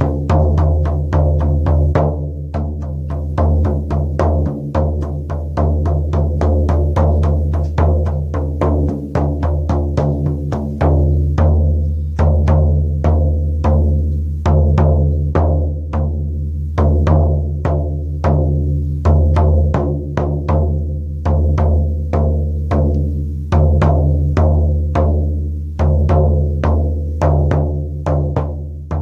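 Shaman's frame drum beaten in a steady, even rhythm of about three strokes a second, its deep boom ringing on between the hits.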